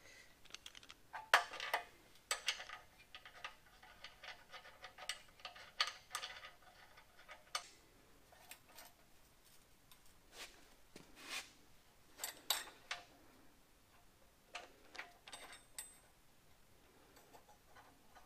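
Scattered light metallic clicks, taps and clinks of homemade steel fixture clamps being set into the holes of a perforated welding table and tightened against the jig rails, a few taps ringing briefly.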